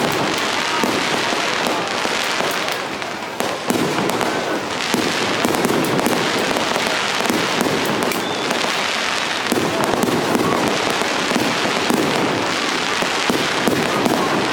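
Aerial fireworks display going off in quick succession: a dense, nearly continuous run of bangs and crackling, easing off briefly about three seconds in.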